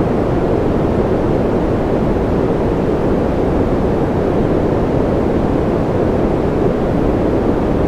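Steady, unchanging ambient noise of a sleep and concentration noise track, deep and muffled with most of its weight low down and little hiss at the top.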